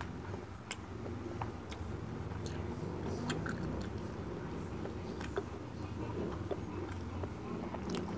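Close-up mouth sounds of a person biting and chewing soft food, a peeled banana: irregular wet clicks and smacks over a low steady hum.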